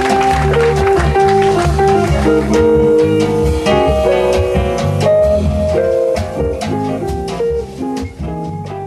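Small jazz band playing live: a hollow-body electric guitar holding sustained melody notes over an electric bass line, with drum cymbals keeping time. The music grows quieter over the last few seconds.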